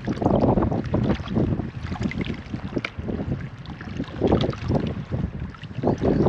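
Seawater sloshing and lapping in a narrow rock crevice, coming in uneven surges, with wind buffeting the microphone.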